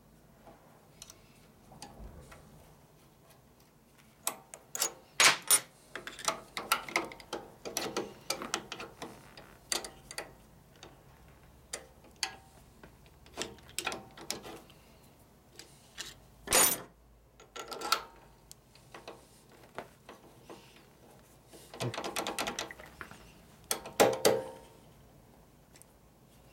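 Hand tools on a bolt at a motorcycle's brake master cylinder mount: runs of quick ratcheting clicks and light metal clinks, busiest about five seconds in and again near the end, with one sharp clank a little past halfway.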